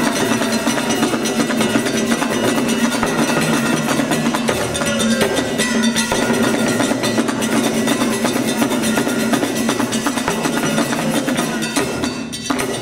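Live traditional West African drum ensemble playing a fast, driving rhythm on hand drums, with sharp wood-block-like clicks over the drumming. The sound dips briefly near the end.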